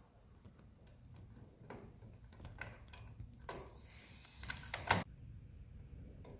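A series of small, sharp clicks and taps at irregular spacing, with louder ones about three and a half seconds in and a quick cluster just before five seconds.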